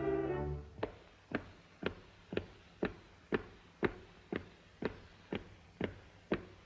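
A held musical note ends about half a second in. It is followed by a steady series of sharp dry taps, about two a second and a dozen in all, like a woodblock or clock-tick effect on an early cartoon soundtrack.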